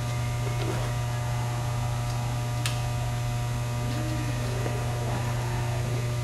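Steady low electrical hum, with a single sharp click about two and a half seconds in.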